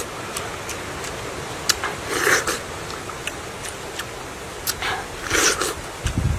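A person eating soft, ripe dragon fruit: wet slurping bites at the flesh about every three seconds, with small sharp mouth clicks and smacks between. A low thump comes near the end.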